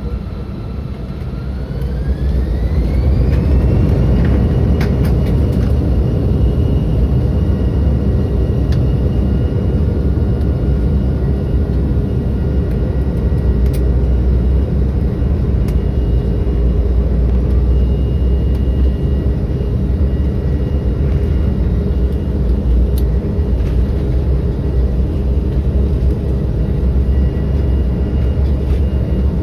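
Airliner's turbofan engines heard from inside the cabin spooling up to takeoff thrust: a whine rises in pitch over the first few seconds and the sound grows loud. Then a steady loud roar with deep rumble as the jet rolls down the runway, with a few light clicks and rattles.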